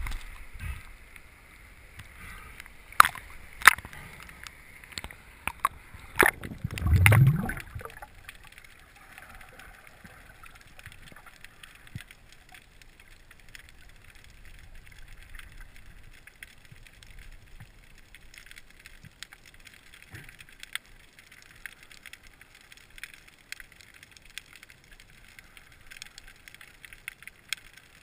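Seawater sloshing and splashing around a camera at the surface, with a few sharp knocks, then a loud low rush of water as it goes under about seven seconds in. After that, muffled underwater ambience: a steady faint hiss with scattered small clicks.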